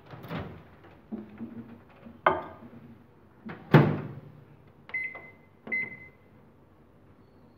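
Microwave oven being loaded and started: a few knocks and clunks as the dish goes in and the door is shut, the loudest about halfway, then two short keypad beeps as it is set to high power for 30 seconds.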